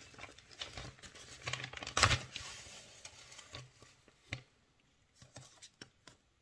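Kraft paper mailer being torn open and rustled by hand, loudest in a burst about two seconds in, followed by a few light taps as the contents are pulled out.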